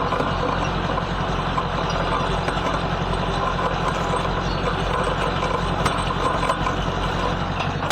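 Farm tractor engine running steadily with an even low drone while it skids a log.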